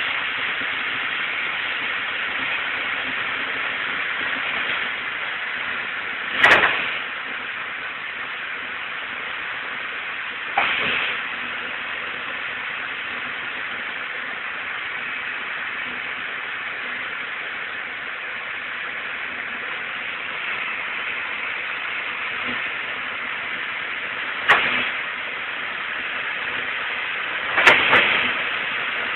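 Excavator running, heard as a steady rushing hiss with a faint low hum, broken by four short sharp knocks spread through.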